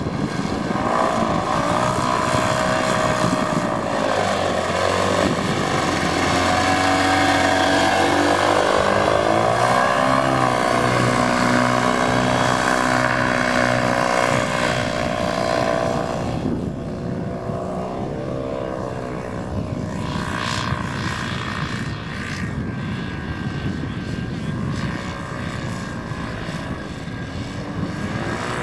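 Paramotor (powered paraglider) engine and propeller running in flight, its pitch rising and falling with the throttle. It gets quieter a little past halfway and picks up again near the end.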